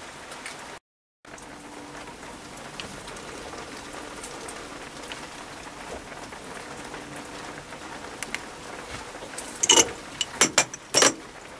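Low steady hiss, cut by a brief dropout about a second in. Near the end come several sharp metallic knocks and clicks as the mandrel handle is pulled out of the back of the mini lathe's spindle.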